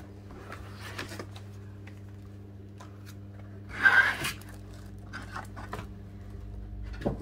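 A cardboard appliance box being opened by hand: small scrapes and clicks, and one louder tearing scrape about four seconds in.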